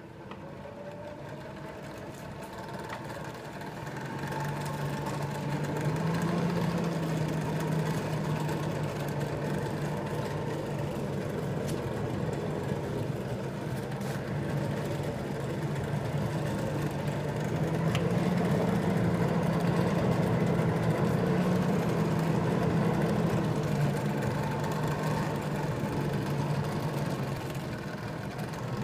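Electric blower on a coal forge running, blowing air into a freshly lit fire of green coal. It is a steady low hum that builds up over the first few seconds and then holds, its pitch wavering slightly.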